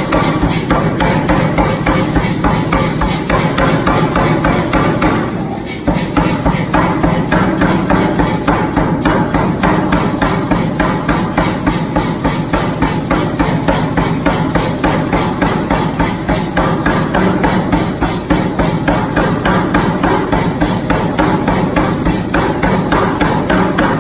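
Pneumatic power hammer (air hammer) striking hot steel in fast, steady repeated blows, several a second, with a short break about five seconds in.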